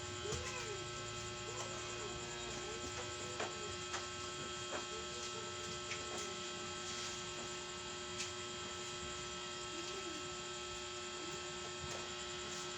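A steady electrical hum with several fixed tones, and a few faint scattered clicks.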